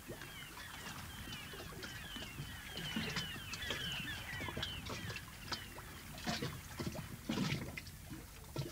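Harbour ambience: many small birds chirping in quick squiggly calls, with several short knocks in the second half.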